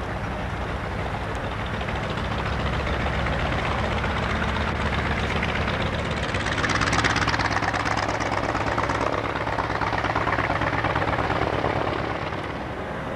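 Aircraft engines running steadily, growing louder about seven seconds in and again around ten seconds, then easing off near the end.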